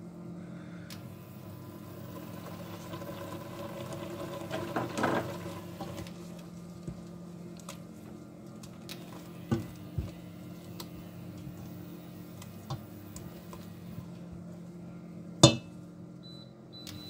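A plastic spoon stirring a thick purée into chicken and prawns in a stainless steel pot, with wet scraping and light knocks against the pot, busiest in the first third. A single sharp knock of the spoon on the pot comes near the end and is the loudest sound, over a steady low hum.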